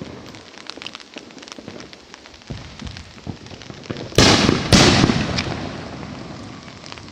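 Fireworks going off: scattered small cracks, then two loud booms about four seconds in, half a second apart, with a rumble that slowly fades.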